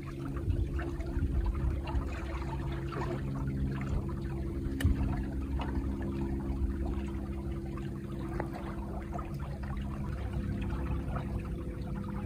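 Water trickling and lapping against the hull of a Hewes 18 Redfisher flats boat moving slowly over calm water, over a steady low mechanical hum.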